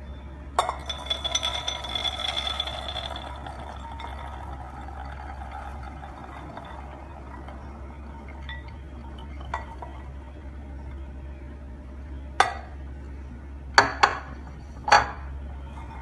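Pomegranate arils poured into a glass food-chopper bowl, a rush of pattering clicks with the glass ringing for about two seconds. Later, four sharp clinks against the glass bowl.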